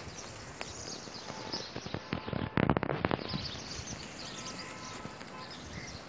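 Outdoor ambience with small birds chirping intermittently and a quick run of sharp knocks or clicks about halfway through.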